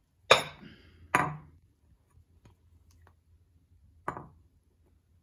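Kitchenware knocking: a ceramic bowl and silicone spatula clacking against a plate and granite countertop, two sharp knocks close together near the start and a softer one near the end, with light clinks between.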